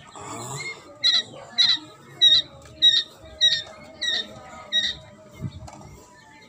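Young quail calling: about eight short, sharp calls, a little over half a second apart, from about a second in to about five seconds.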